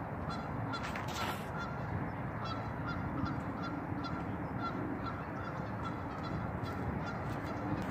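A flock of geese honking, many short calls repeated throughout, over a steady outdoor hiss.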